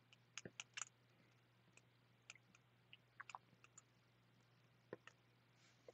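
Near silence with faint, scattered clicks and taps of a marker writing on a glass lightboard, over a faint steady low hum.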